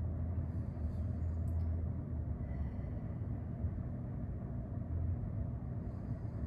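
Steady low background rumble, room noise with no distinct event.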